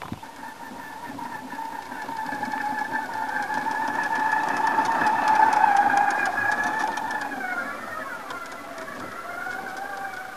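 Electric drive of a heavy radio-controlled four-wheel robot, a pair of 550 W wheelchair motors, whining steadily under load. It grows loudest as the robot passes close about six seconds in, then drops in pitch and wavers as it moves away. Small ticks and crackles from the tyres digging through sand run through the middle.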